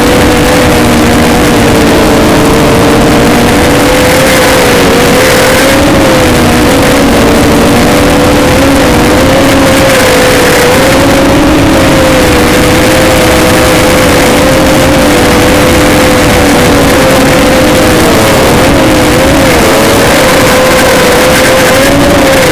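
ZMR250 mini-quadcopter's electric motors and propellers whining in flight, a steady tone that wavers in pitch with the throttle and dips briefly a couple of times, over a rushing noise. The sound is loud and distorted.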